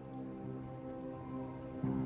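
Soft background music from a drama score: slow, sustained chords, with a new chord coming in near the end.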